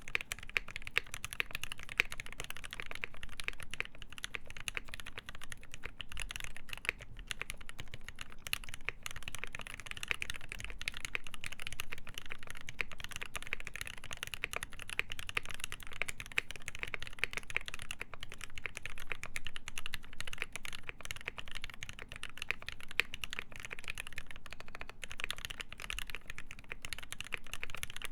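Fast, continuous typing on a KBD8X MKII mechanical keyboard with lubed ZealPC Tealios linear switches, a full brass plate and GMK keycaps.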